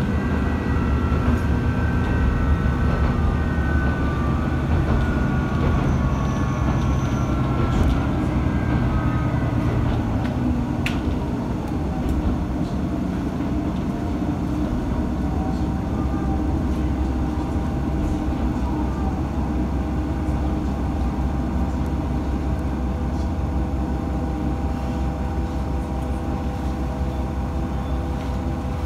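Matsuura Railway MR-600 diesel railcar running, heard from inside the car: a steady low drone with a whine that falls in pitch over the first ten seconds or so, then holds steady. A single sharp click about eleven seconds in.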